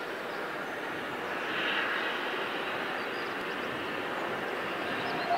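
Steady distant mechanical noise of a working harbour, with a harbour crane in operation; it swells briefly about a second and a half in, and there is a short knock near the end.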